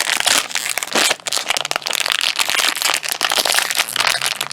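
Crinkling and crackling of toy blind-bag packaging as it is handled and opened by hand: a dense run of irregular small crackles and clicks.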